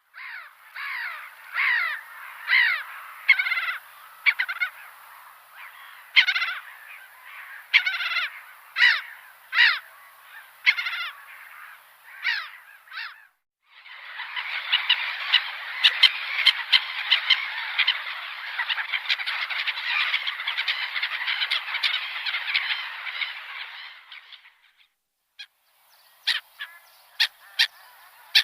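Gulls calling: a run of separate calls, one or two a second, for about thirteen seconds, then after a short break a dense, unbroken stretch of many calls for about ten seconds, and a few short, sharp calls near the end.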